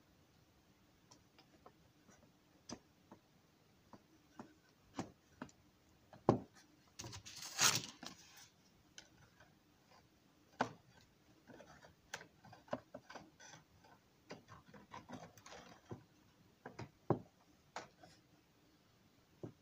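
Light taps, clicks and rubbing as model railroad engine house wall pieces are handled and fitted together on a workbench, with a longer scraping rustle about seven to eight seconds in.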